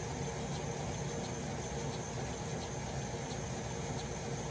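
Laser engraver running: a steady machine hum and fan noise with a constant high whine and a few faint ticks.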